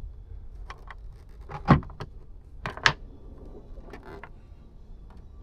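Hands fitting plastic trim fasteners on a car, making a run of short clicks and knocks; the two loudest come about a second apart near the middle.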